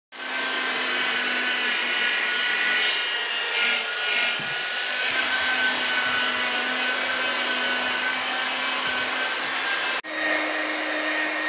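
Electric rotary polisher's motor running at a steady speed, a continuous whine, as its pad buffs painted bodywork. After a brief break near the end it starts again slightly higher in pitch.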